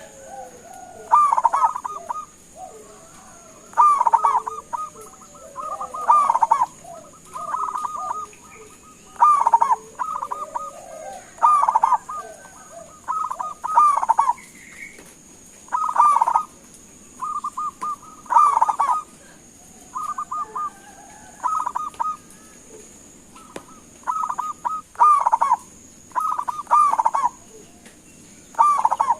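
Zebra dove (perkutut) calling: short phrases of rapid cooing notes, one every second or two, with a thin steady high whine behind.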